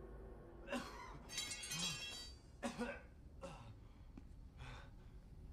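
A wounded man's ragged gasping breaths, about one a second. A brief glassy tinkling comes between the second and third breaths.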